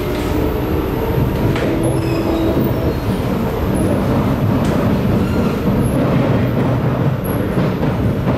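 Cabin noise of a moving Singapore MRT train, a Kawasaki Nippon Sharyo C751B, running on the North South Line: a steady rumble of wheels on the track, with a faint whine in the first two or three seconds and a single click about a second and a half in.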